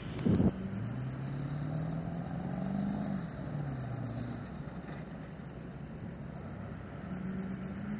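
Pickup truck engine revving, its pitch climbing for about two seconds, then falling away and easing off; another short rev near the end. A brief loud thump about half a second in.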